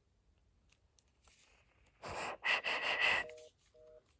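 A breath-like noisy rush lasting about a second, then, near the end, a fast-busy (reorder) tone over the phone line: two steady tones sounding together, pulsing on and off about four times a second, the signal that the call did not go through.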